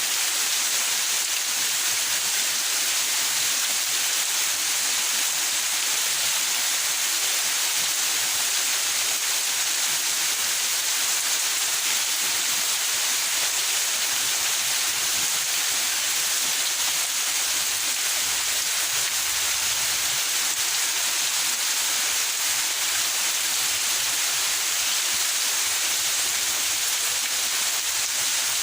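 Steady rain falling in a backyard, an even hiss of drops with no change in level.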